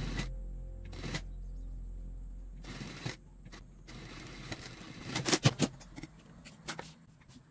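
Cotton fabric handled at a sewing machine: rustling and scraping as it is slid out from under the presser foot, with a cluster of sharp clicks and scrapes about five seconds in.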